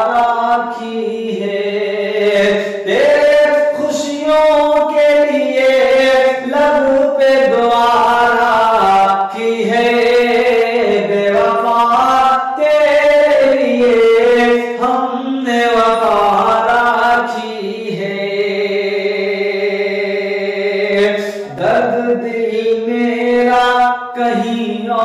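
A man singing a slow Hindi-Urdu melody with long, drawn-out, ornamented notes, one note held steady for about three seconds late on.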